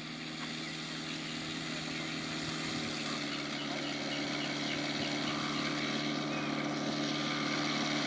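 Scale RC Gipsy Moth biplane model taxiing on grass, its onboard Benedini sound module playing a recorded Tiger Moth engine idling steadily. The hum grows gradually louder as the model approaches.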